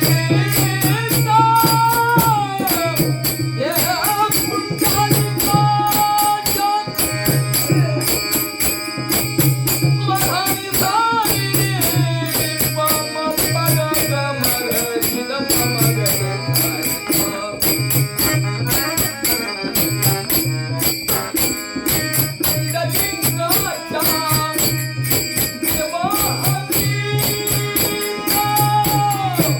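Marathi devotional song (abhang) music: a melody line that slides up and down in pitch over jingling percussion keeping a steady, even beat.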